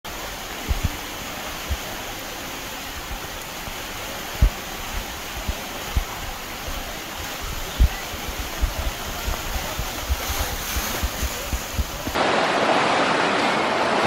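Water rushing down a river rapids ride's channel, a steady hiss broken by short low thumps. About twelve seconds in it jumps to a louder, fuller rush of white water.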